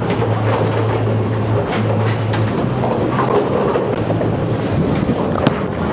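Bowling ball rolling down the lane, a steady rolling noise with a low hum in the first half, and a sharp click about five and a half seconds in.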